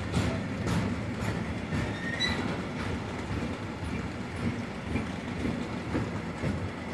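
Intermodal container freight wagons rolling past at speed: a steady low rumble of wheels on rail with clicks over the rail joints, and a brief faint wheel squeal about two seconds in.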